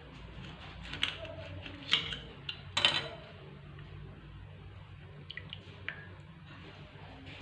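A few sharp clicks and knocks of kitchenware being handled, the loudest about three seconds in, over a low steady hum.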